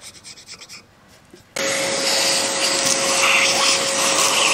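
A hand scraper scrapes lightly on a cast-iron cylinder head. About a second and a half in, a vacuum cleaner switches on abruptly and runs with a steady whine, its hose nozzle sucking scraped-off deposits out of the combustion chambers.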